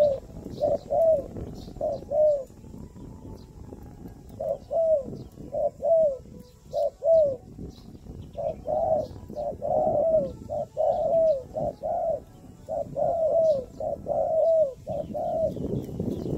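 Doves cooing: runs of short coos, each bending up then down, with short pauses between runs and the coos coming thickest in the second half. Faint, high chirps of small birds sound above them.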